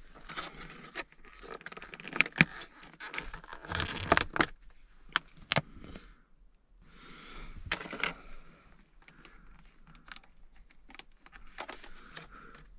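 Clear plastic clamshell sandwich container crackling and clicking as it is popped open and handled, in quick crinkly bursts with a short pause about halfway through.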